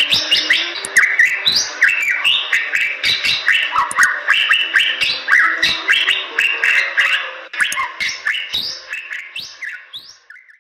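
Bali myna singing a rapid, unbroken string of chirps, short rising whistles and sharp clicks, fading out near the end.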